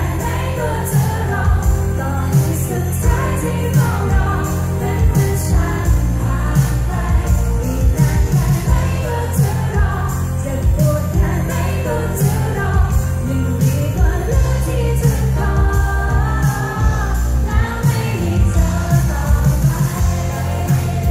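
Live pop band playing through a concert PA, heard from within the audience: a woman singing over electric guitar, keyboard, bass and drums with regular cymbal hits. The sound is loud and bass-heavy.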